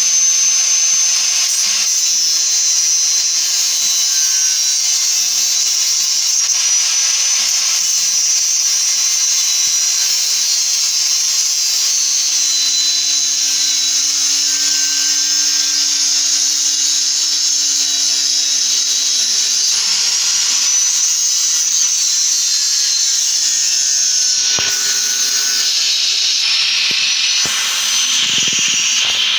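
A power tool running continuously: a loud, steady high-pitched hiss with faint whining tones that shifts in character near the end.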